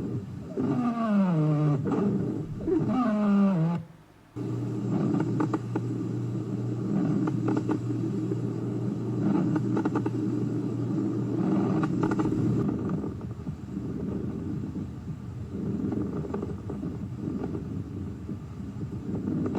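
Recorded lung auscultation sounds heard through a stethoscope. First come three musical tones, each falling in pitch. After a short break comes a low, coarse continuous breath sound with scattered clicks.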